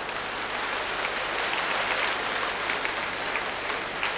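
Audience applauding. The applause builds to its loudest about halfway, then thins to scattered separate claps near the end.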